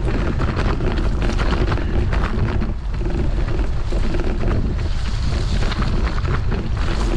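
Wind buffeting the microphone, a loud steady rumble.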